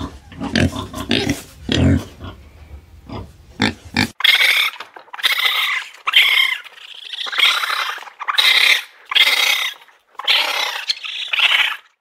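Pot-bellied pig grunting in a string of short, low grunts. About four seconds in, it cuts off suddenly and is replaced by a run of six or seven short, high-pitched calls from a raccoon dog.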